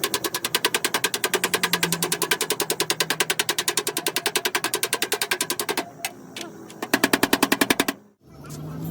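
Rapid, even hammer taps on the sheet-steel fender of a Suzuki Mehran, about nine strikes a second, as a dent is beaten out. The tapping breaks off just before six seconds in, starts again for about a second, then stops.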